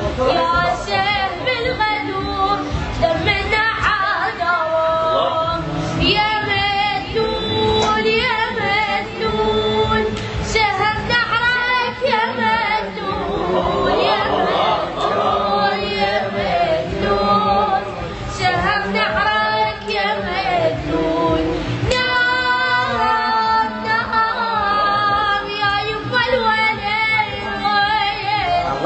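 A voice singing a wavering, ornamented melody over musical backing, continuing throughout.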